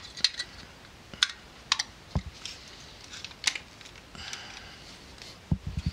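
Scattered small clicks and taps from hands handling a Ricoh Auto Half half-frame film camera, with a single dull knock about two seconds in and a short cluster of dull knocks near the end.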